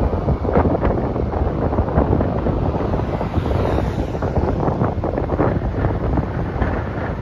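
Wind buffeting the microphone of a moving vehicle, a loud, gusty rumble that rises and falls irregularly throughout.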